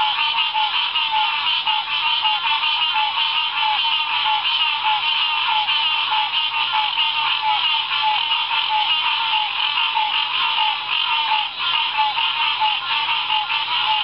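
Loud, dense chorus of many frogs calling at once, their overlapping high-pitched calls merging into a continuous din.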